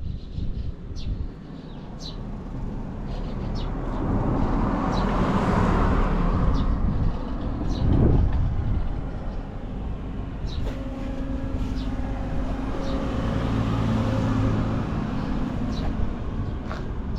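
Vintage Yamaha Passol scooter's small two-stroke engine running. It revs up to a peak about halfway through, then settles into a steady idle, running with no abnormal noise and revving up cleanly.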